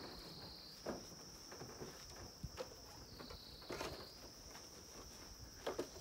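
A steady, high-pitched chirring insect chorus whose pitch dips slightly twice. Several light wooden knocks and scrapes come from a wooden box beehive being opened and handled.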